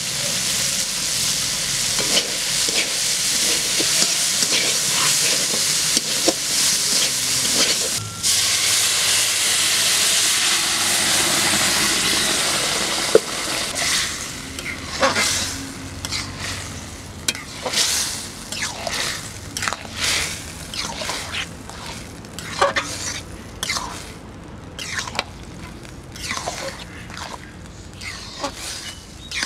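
Mushrooms and spices sizzling in hot oil in a metal wok, steady for the first half. About halfway, rice is stirred into the pan: short repeated stirring strokes against the metal take over as the sizzle dies down.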